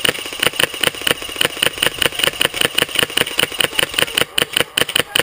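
Airsoft gun firing full-auto in a long continuous string, about ten shots a second.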